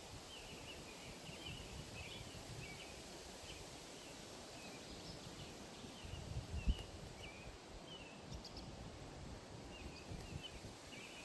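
Quiet outdoor ambience filled with a continuous run of short, high chirps repeating once or twice a second over a low background hiss, with a brief low thump about six and a half seconds in.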